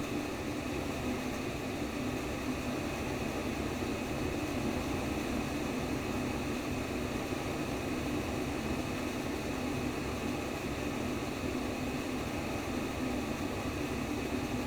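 Steady white noise made to imitate the sounds heard in the womb: an even, unchanging rushing hiss with no heartbeat pulse and no breaks.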